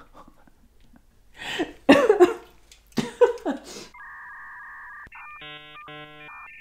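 A few murmured vocal sounds, then an edited-in dial-up modem sound effect: telephone dialing tones from about four seconds in, then quickly switching handshake tones, running straight into a steady hiss of line static at the very end.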